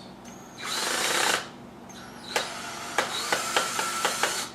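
Power drill driving a screw into a thick plastic pipe wall in a short whirring burst, then a run of sharp clicks as the screw is worked in and out to start a hole.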